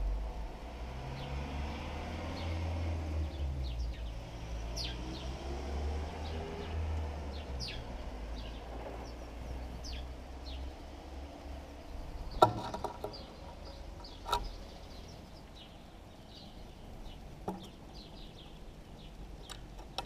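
House sparrows chirping now and then in short, falling chirps, over a low traffic rumble that fades out about halfway through. Two sharp knocks come a little past halfway, the first the loudest sound.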